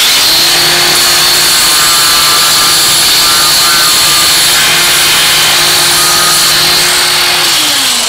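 Handheld power tool with a sanding disc running at a steady speed, grinding away a small edge of a plastic junction-box lid. The motor winds down with falling pitch near the end as it is switched off.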